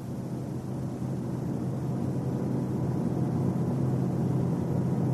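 Car driving at highway speed: a steady low drone of road and engine noise with a hum, slowly growing louder.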